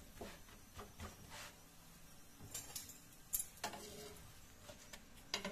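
Faint scrapes and clicks of a spatula against a non-stick tawa as a paratha is turned and pressed while it cooks, with a few sharp clicks around the middle and one near the end.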